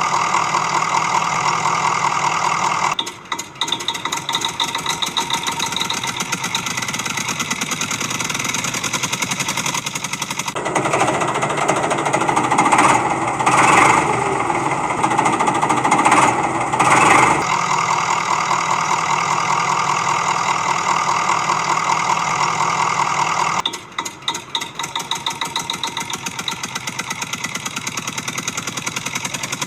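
A motor running steadily with a fast, even pulse. For several seconds in the middle it gets louder and rougher, surging a few times, then settles back to its earlier steady note.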